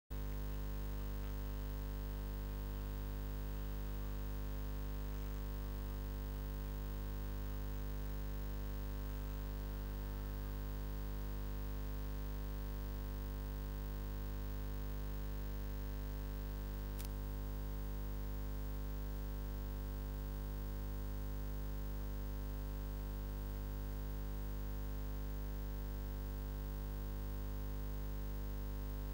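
Steady electrical mains hum, a low 50-cycle buzz with a stack of overtones, unchanging in pitch and loudness. A single sharp click about 17 seconds in.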